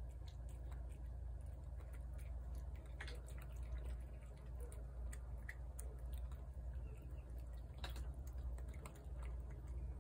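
A cat chewing and licking wet food from a plate, heard as irregular small wet clicks and smacks, over a steady low background rumble.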